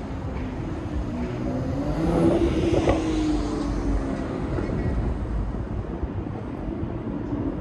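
A motor vehicle drives past on the street, its engine note rising as it approaches, loudest about three seconds in, then dropping away. Steady city traffic rumble underneath.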